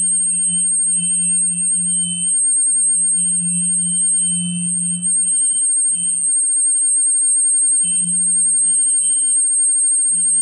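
Steady electronic tones: a constant high-pitched whine over a low hum that swells and fades unevenly, with fainter mid-pitched tones coming and going.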